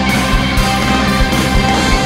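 Loud backing music with a steady beat.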